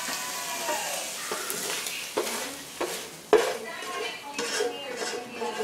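Haddock sizzling as it fries in a pan, with a utensil scraping and clinking against the pan several times; the sharpest knock comes a little past the middle.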